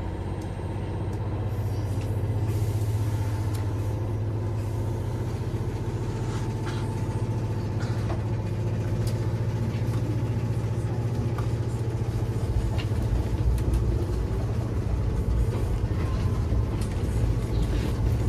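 Steady low hum of a Nagano Electric Railway 3500 series (ex-Eidan 3000) car's underfloor auxiliary equipment, its static inverter and air compressor, heard from inside the car. It gets louder about two seconds in, and a deeper rumble builds over the last few seconds.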